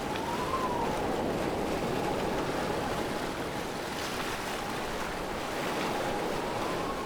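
Steady rushing of a waterfall, with a thin held tone above it that rises slightly about half a second in and again near the end.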